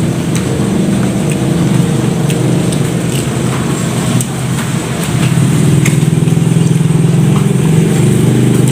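A loud, steady low motor drone, with a few faint sharp clicks over it.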